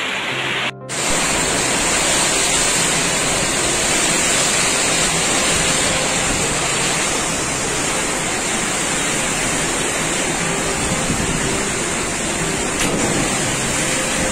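Typhoon-force wind and heavy rain lashing trees: a loud, steady rush of noise, broken by a short dip about a second in where one clip cuts to the next.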